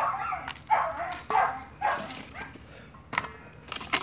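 Pit bull terrier barking and whining, about four loud calls in the first two and a half seconds, followed by a couple of sharp clicks.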